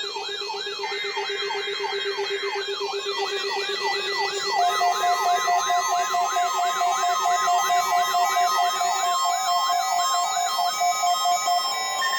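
Electronic siren tones layered together: a wail sweeping up and down about two to three times a second over steady and pulsing alert tones, growing louder about four and a half seconds in.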